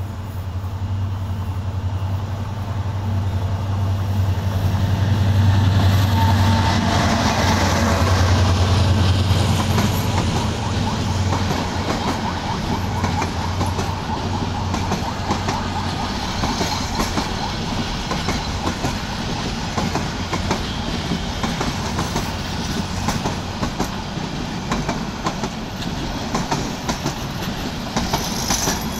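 A Bangladesh Railway diesel-hauled intercity passenger train passes at low speed. The locomotive's low engine drone builds and is loudest around the sixth to tenth second. The coaches then roll by with a steady clickety-clack of wheels over rail joints.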